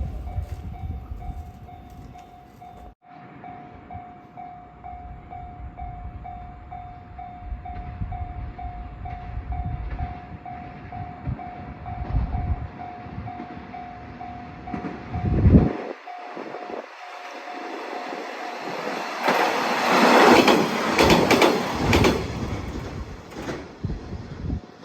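Japanese level-crossing warning bell ringing with a rapid, even ding. Near the end, a two-car KiHa 120 diesel railcar set passes over the crossing, loudest for a few seconds.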